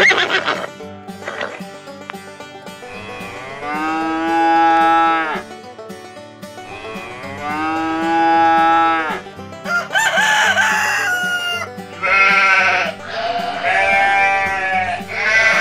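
Digital animal sound effects from a toy infant feeding spoon, over background music. Two long drawn-out animal calls, then a rooster crowing about ten seconds in, then three sheep bleats.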